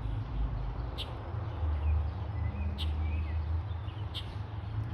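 A bird's short, high call repeating about every second and a half, with a few faint chirps in between, over a steady low rumble.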